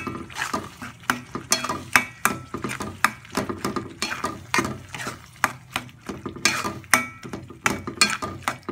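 A metal spoon stirring and scraping chili sambal paste around a metal pan as it cooks on the stove, giving irregular clinks and scrapes against the pan, a few a second, some with a brief metallic ring.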